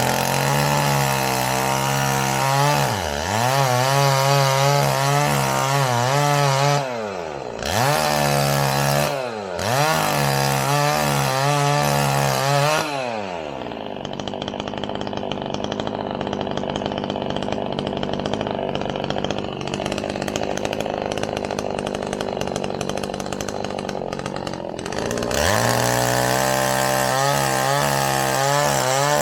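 Two-stroke chainsaw running at high revs, its pitch dipping sharply and climbing back several times. It then settles into a lower, quieter, steady running for about ten seconds before going back up to high revs near the end.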